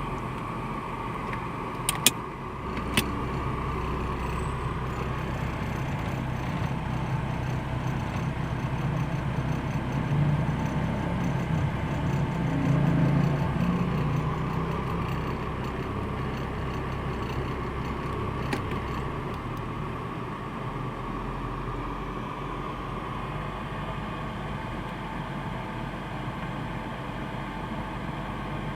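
Mercedes G 300 engine idling roughly, a rough idle the owner wants help with. Two sharp clicks come about two and three seconds in, and the engine gets louder for a few seconds partway through before settling back to its steady idle.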